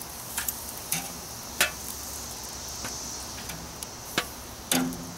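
Metal tongs clicking against the grill grate and a foil pan as grilled chicken pieces are lifted off, with about five separate sharp clicks. A steady high insect chirr runs underneath.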